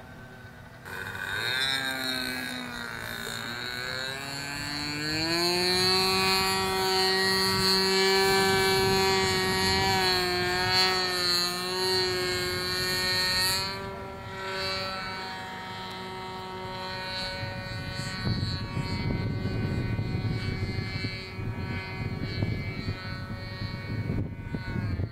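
OS 55AX two-stroke glow engine on a U Can Do 46 RC aerobatic plane flying overhead: its buzzing tone dips in pitch, climbs about five seconds in and holds high and steady, then fades about halfway through.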